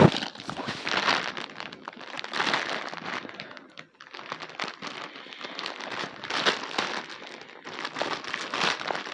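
Plastic bag crinkling and crackling irregularly as a plush toy is worked out of it, with a sharp knock right at the start.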